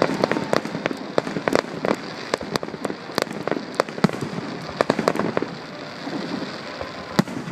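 Fireworks display: a rapid run of sharp bangs, many a second, over a dense steady crackle.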